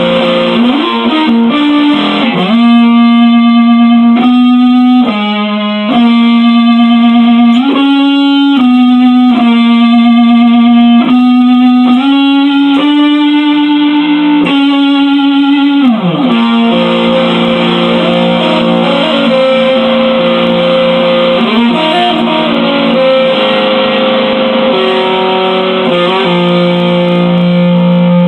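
Electric guitar played solo, instrumental: slow, sustained single notes stepping in pitch about once a second, then longer held notes with pitch slides between them in the second half.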